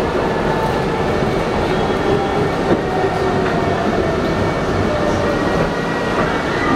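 R68 subway car running along the track: a steady, loud rumble of wheels on rails with faint thin high tones from the wheels.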